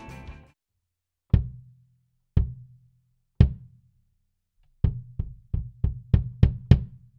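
Pearl kick drum played solo. There are three single hits about a second apart, then a quicker run of seven hits at about three a second, each a deep thud that dies away fast. Music fades out just at the start.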